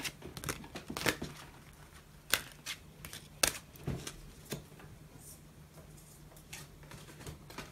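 A deck of oracle cards being shuffled and handled: a scatter of sharp card snaps and taps about a second apart over soft rustling.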